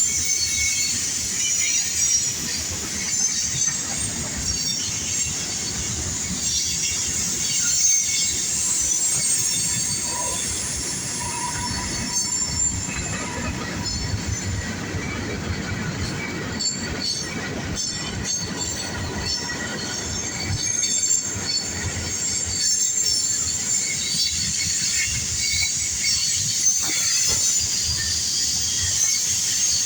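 Norfolk Southern mixed freight train rolling past, its cars giving a steady low rumble while steel wheels squeal in high-pitched tones on the rail.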